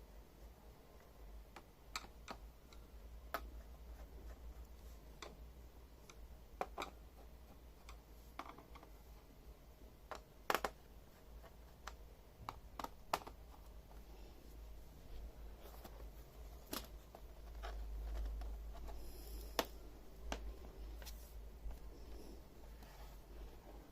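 Scattered small clicks and taps of hands and tools working on a Lenovo ThinkPad E580 laptop's plastic case during disassembly, irregularly spaced, over a low steady hum.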